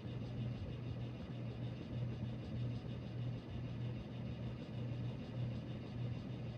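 Harbor Breeze Cobra Elite three-blade ceiling fan running steadily at medium speed, with a low buzzing hum and air noise. The buzz is a fault, which the owner believes is the blades vibrating.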